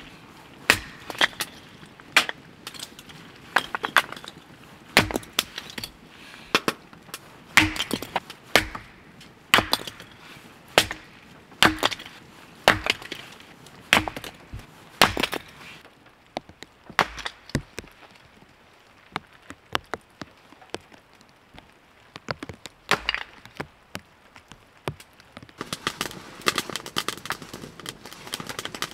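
A hatchet splitting small wood rounds into kindling on a chopping block: sharp wooden knocks and cracks about once a second for roughly fifteen seconds, then only a few more strikes spread out.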